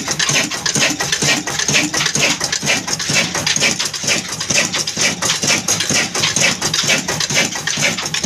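Old stationary Ruston diesel engine running steadily, its rocker arms and push rods clattering in a fast, regular rhythm over the engine's beat.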